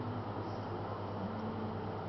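Steady low hum over a constant background hiss.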